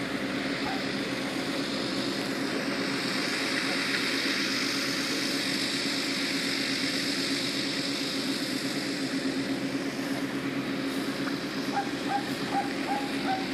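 Tractor engine running steadily under load, driving an F.lli Merlini M60 manure spreader with two vertical beaters as it spreads manure. A run of short, evenly spaced yelps from a dog comes in near the end.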